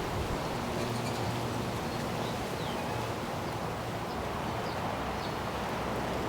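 Wind gusting over the microphone and through the garden, a steady low rushing, with a few faint high bird chirps scattered through it and one short falling note about two and a half seconds in.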